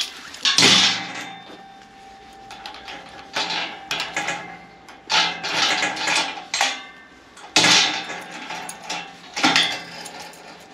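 Key-operated multi-point lock of a galvanized steel bar door being worked, its bolts and the metal door giving about six sharp metallic clanks a second or two apart. The lock now latches properly.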